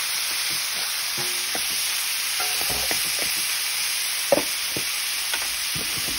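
Beef and vegetable stir fry sizzling steadily in an Essen wok while a spatula stirs and scrapes through it, with scattered light knocks of the spatula against the pan and a sharper knock about four seconds in.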